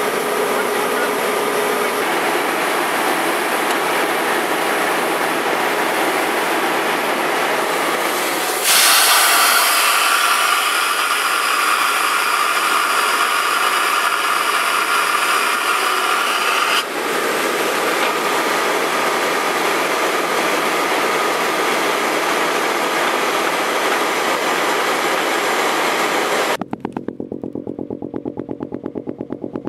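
Ditch Witch JT2720 directional drill running during a pipe-bursting pullback: a loud, steady mechanical din that gets louder from about nine seconds in to about seventeen seconds in. Near the end it gives way suddenly to a quieter, rapid, even pulsing clatter.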